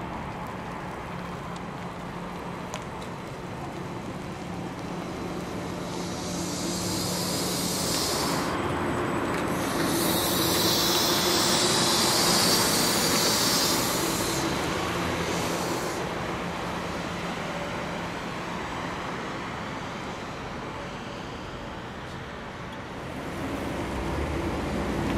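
An MBTA Neoplan electric trolley bus pulling away from a stop and passing close by: a steady electric hum, rising to a higher whine as it goes past, with three loud bursts of air hiss from its air system, the loudest as it passes.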